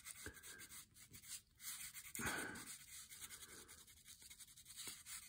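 Faint swishes of a watercolor brush on paper, two or three soft strokes over quiet room tone.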